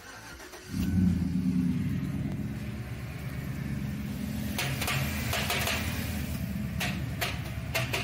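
Car engine starting about a second in, then running steadily at idle. A series of sharp clicks or knocks joins it about halfway through.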